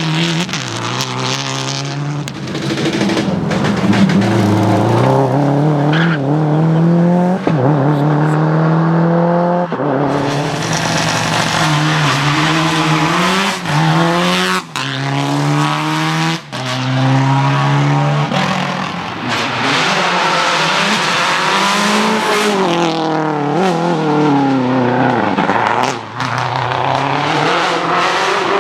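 Subaru rally car's turbocharged flat-four engine revving hard through the gears: the pitch climbs again and again and drops sharply at each upshift, with short lifts off the throttle a few times.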